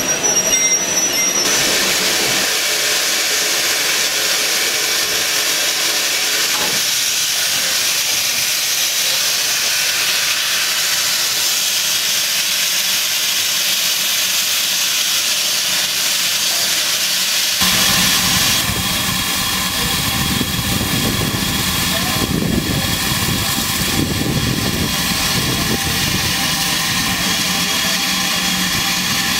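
Steam locomotive letting off steam: a loud, steady hiss. About two-thirds of the way through it cuts abruptly to a lower, steady mechanical running sound with several held tones.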